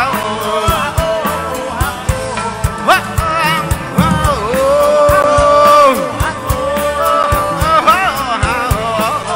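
Live band music with a singer over a steady drum beat; the singer holds one long note from about halfway through.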